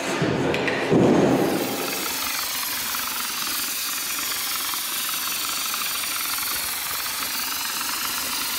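Steady hiss of a compressed-air hopper spray gun spraying cementitious mortar (EDCC) onto a wall. It follows a brief loud low rumble in the first second and a half.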